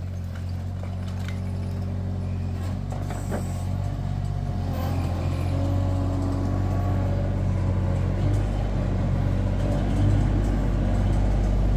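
Bobcat skid-steer loader's engine running steadily as it drives with a bucket full of bricks, getting gradually louder, with a few faint knocks.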